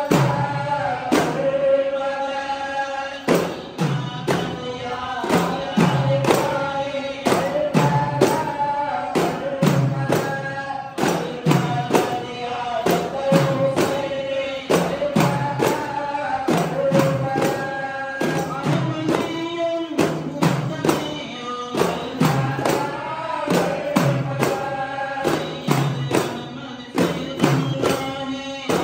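Group of men chanting a devotional dhikr song together, holding long sung notes, to a steady beat of hand-struck frame drums.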